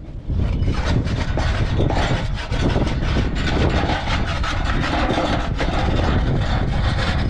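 Metal spatula scraping and clicking against a large round metal griddle as flatbreads are lifted and turned, a rough rasping sound, over a steady low rumble.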